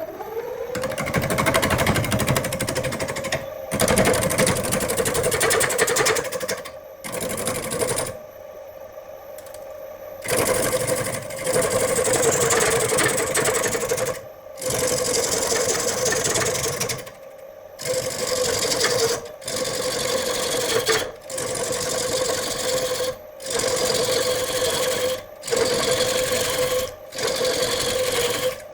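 Electric power tool spinning up, then running with a steady whine while it works the wood in repeated passes, broken by short stops.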